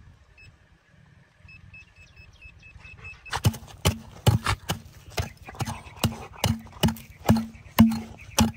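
Short high beeps, about four a second, typical of a metal detector's signal, then from about three seconds in a run of sharp knocks, about two to three a second, each with a short low thud.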